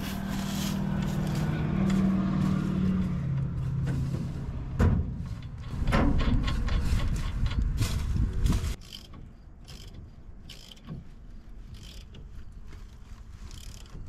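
An engine running close by, with a low rumble and a hum that slowly drops in pitch, cutting off suddenly about nine seconds in. After that, quieter scattered clicks and taps of wrench work on the combine's stalk chopper mounting.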